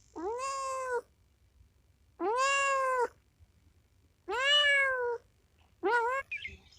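A cat meowing four times: three drawn-out meows about two seconds apart, then a shorter one near the end.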